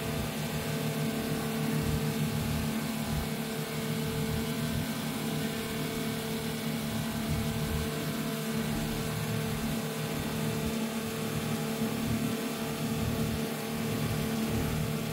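An engine running steadily at a constant pitch, with a fluttering low rumble underneath.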